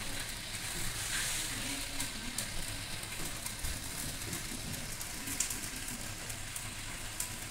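Hot cooking oil sizzling steadily as fish deep-fries, with occasional sharp crackles.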